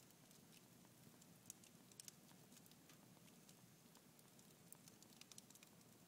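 Red oak logs burning in a wood fireplace, crackling faintly with scattered sharp pops and ticks, a few louder ones about two seconds in and a quick cluster near the end.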